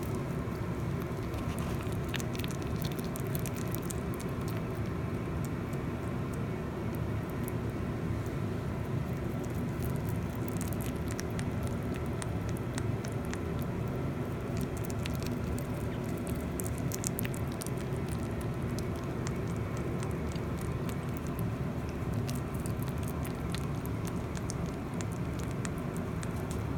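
A Mini Rex rabbit biting and chewing a whole banana: scattered small wet clicks and munching, coming in bouts, over a steady low background hum.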